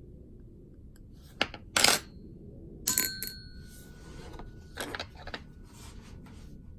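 Small metal parts clinking and clattering on a hard surface in several sharp hits, the loudest around two and three seconds in. The one at three seconds leaves a brief metallic ring, and lighter clicks follow near five seconds.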